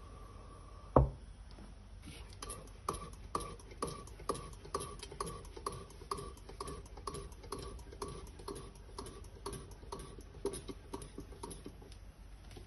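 Hydraulic barber chair lift being pumped with its foot lever: a sharp click about a second in, then a steady run of about two and a half pumping strokes a second, each a short click with a brief squeak, as the seat rises. The hydraulic lift is working smoothly.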